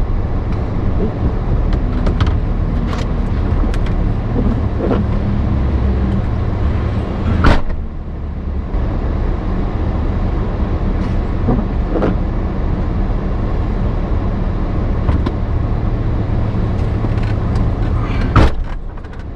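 Lifted 2006 Chevy Silverado pickup's engine running steadily, with two sharp knocks, one about seven seconds in and one near the end.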